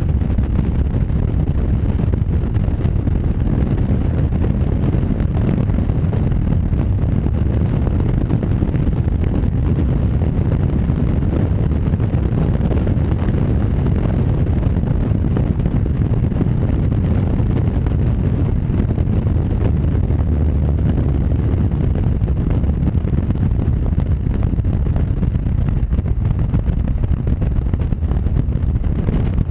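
Honda Varadero V-twin motorcycle cruising at a steady speed, with wind rushing over the bike-mounted microphone as a continuous low roar that covers the engine.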